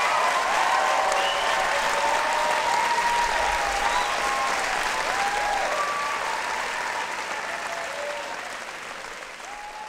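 Audience applauding, with scattered cheers and whoops over the clapping, gradually fading out over the last few seconds.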